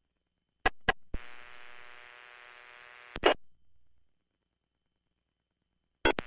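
Police radio scanner audio: a transmission opens with two squelch clicks and carries about two seconds of steady buzzing hum with no voice, then cuts off with a squelch burst. Another pair of clicks comes near the end as the next transmission opens.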